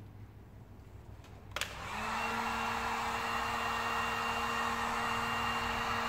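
Electric heat gun switched on with a click about a second and a half in, then running with a steady fan whir and a constant hum, blowing hot air to soften vinyl wrap film.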